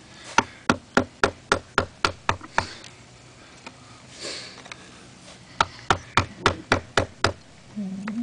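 Ball-peen hammer striking a wooden log in two quick runs of blows, about four a second: about nine blows, a pause of roughly three seconds, then about seven more. The hammering is chipping the dog's stuck nose free of the log. A low wavering whine begins near the end.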